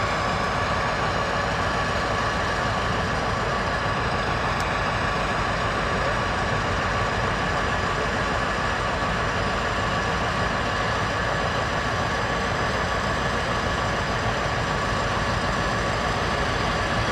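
Uerdingen railbus (DB class 798 Schienenbus) running on its underfloor diesel engines as the three-car set rolls along the track. The engine sound is steady and even, with a faint constant whine over it.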